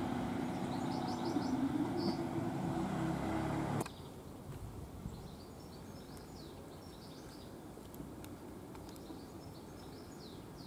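British Rail Class 153 diesel railcar's underfloor engine running steadily as the unit approaches. The sound cuts off abruptly about four seconds in, leaving a quiet background with birds chirping.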